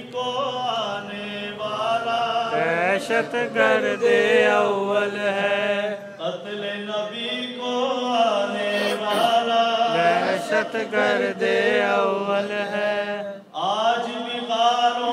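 A man chanting a manqabat, a devotional poem, in long, gliding melodic lines into a microphone, with a brief pause near the end.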